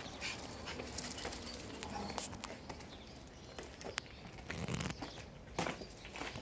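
Shiba Inu puppies giving short, scattered yips and small noises, among faint clicks and scuffs.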